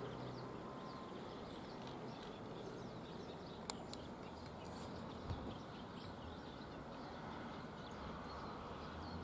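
Quiet outdoor background with faint birdsong chirping throughout, two sharp clicks a little before the middle and a soft thump shortly after.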